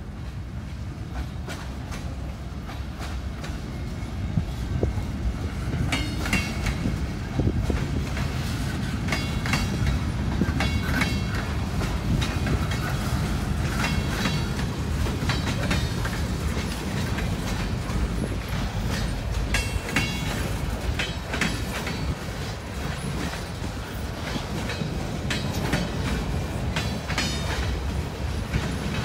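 Freight train of boxcars and a centerbeam flatcar rolling past close by: a steady low rumble with wheels clicking over the rail joints, growing louder over the first few seconds as the cars come closer.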